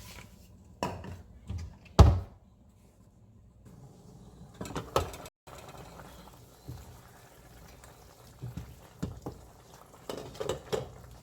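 Kitchen handling sounds of pots and utensils: scattered knocks and clinks, the loudest a sharp knock about two seconds in, with a few more clinks near the end.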